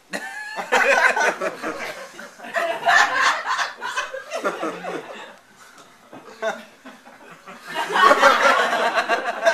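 Live audience laughing in three waves, the loudest near the end.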